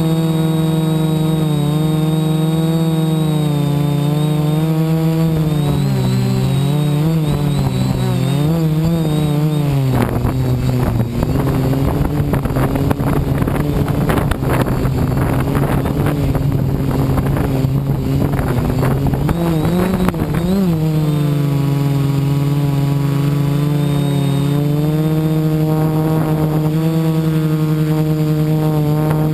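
DJI F450 quadcopter's brushless motors and propellers running, close to the onboard camera: a steady droning whine whose pitch wavers as the throttle changes. From about ten to twenty seconds in it turns rougher and noisier, then swoops up in pitch briefly and settles back to a steady drone.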